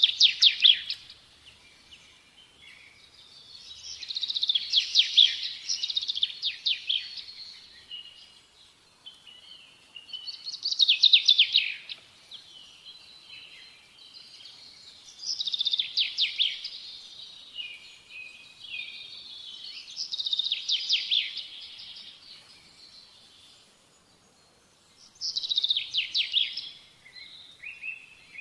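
A songbird singing: six phrases of rapid trilled chirps, each one to three seconds long, coming about every five seconds.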